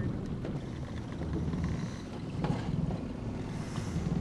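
A steady low rumble of wind and boat noise on a small aluminium fishing boat. There is a short knock about halfway through and a brief hiss near the end.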